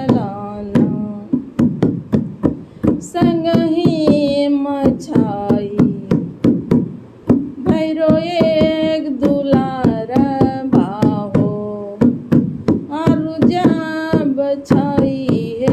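A woman singing a Bhojpuri devotional folk song to the goddess Durga in long, wavering held notes, over quick, steady strokes of a dholak hand drum that she plays herself.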